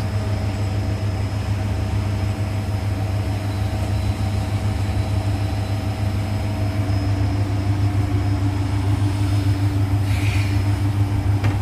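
Siemens iQ700 front-loading washing machine on its spin cycle, with a steady low hum and steady whining tones, the tone growing louder in the last few seconds. It is a test spin of the machine's freshly fitted replacement drum, put in because the old drum was noisy at 1200 rpm.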